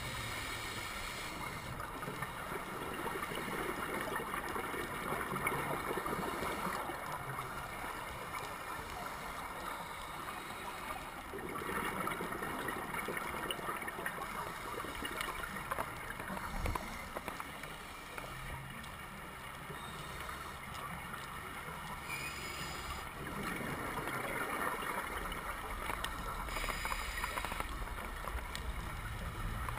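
Underwater ambience picked up through a camera housing: a steady rushing, gurgling water noise that swells and fades every few seconds, with a low hum coming and going.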